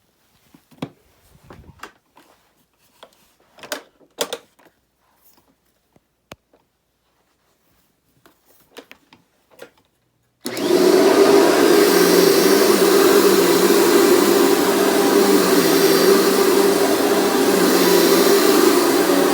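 Scattered clicks and knocks, then a Dirt Devil Featherlite Plus upright vacuum cleaner switches on suddenly about ten seconds in. It runs steadily with a constant hum over a rushing airflow noise.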